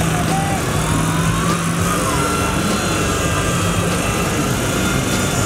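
Off-road buggy's engine running with a steady low drone as the buggy works up a steep, muddy bank.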